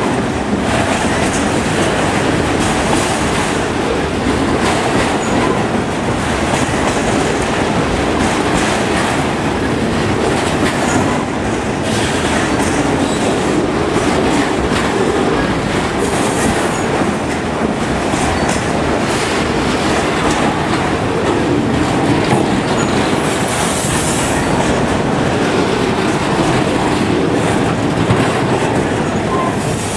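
Freight train of autorack cars rolling past at speed, loud and steady. Steel wheels rumble and clatter on the rail, and there is a brief high hiss about three quarters of the way through.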